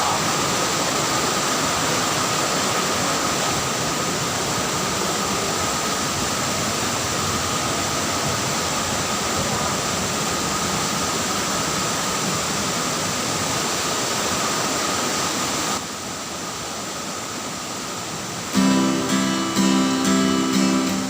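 Steady rush of a waterfall, with a thin steady high tone over it. About 16 seconds in the rush drops quieter, and near the end strummed acoustic guitar music starts and is the loudest sound.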